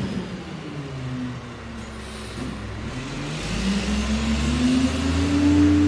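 Diesel engine of a CCC Wittke side-loader garbage truck running low, then revving up with a rising pitch from about three seconds in as the truck pulls away.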